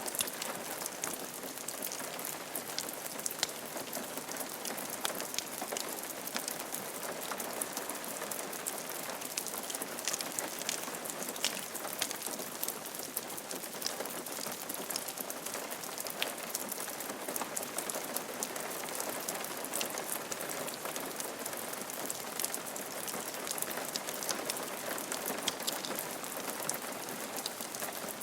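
Steady rain falling on a roof, a dense even patter with many individual drops ticking sharply.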